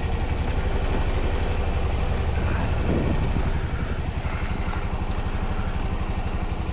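Honda Pioneer 700 side-by-side's single-cylinder engine idling steadily, left running after a reluctant cold start.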